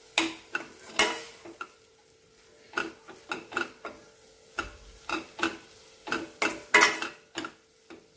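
A spoon scraping and clinking against a stainless-steel pan in quick, irregular strokes as it stirs fenugreek leaves and gram flour. A faint steady hum runs underneath.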